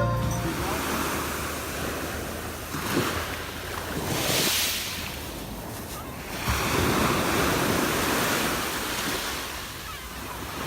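Sea waves washing onto a shore, a steady rush of surf that swells twice, about four seconds in and again past six seconds, with some wind on the microphone.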